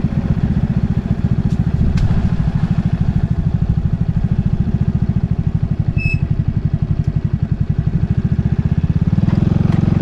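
A vehicle engine running steadily: a low rumble with a fast, even pulse. A brief high chirp about six seconds in.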